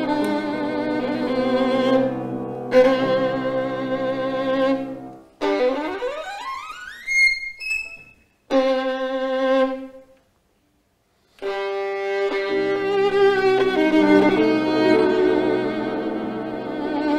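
Background music played on bowed strings, led by a violin with vibrato. About six seconds in the line sweeps upward in a rising glide. Around ten seconds in the music breaks off into a silence of just over a second, then the strings come back in.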